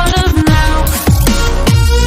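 Electronic dance music with a heavy beat and repeated falling bass sweeps.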